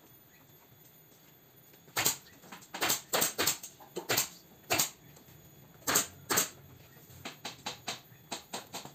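Pneumatic staple gun firing staples through upholstery fabric into a sofa frame: a run of sharp shots, about ten over four seconds, with fainter shots near the end.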